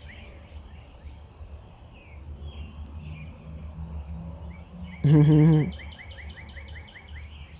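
Outdoor ambience: a steady low rumble under a rapid, high chirping trill of about six chirps a second, which fades and returns near the end. About five seconds in, a man's voice makes one short sound.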